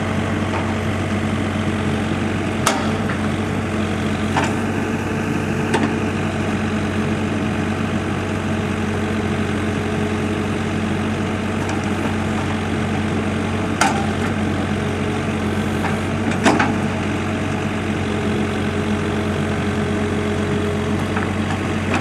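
Komatsu WB140-2 backhoe loader's diesel engine running steadily while the backhoe arm digs, with a few short sharp knocks from the bucket and arm working the dirt.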